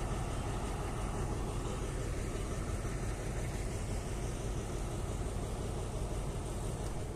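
Steady low rumble of a standing diesel-hauled passenger train, its locomotive idling.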